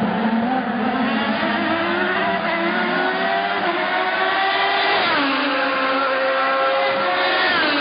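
Open-wheel race car's engine at high revs, its pitch climbing slowly, then falling sharply about five seconds in and again near the end.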